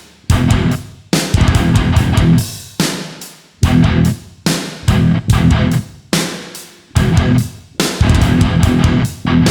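Background rock music with electric guitar and drums, played in loud stabbed chords that stop and ring out in turn.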